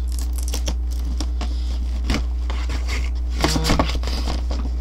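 Cardboard figure box being pried and torn open by hand, with crackling and crinkling of card and tape and scattered small clicks, and a louder rub about three and a half seconds in.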